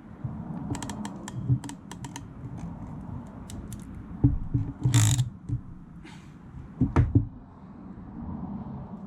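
Hand tools at work as a spade terminal is crimped onto a wire: a quick run of small clicks, a short scrape partway through, then a few knocks.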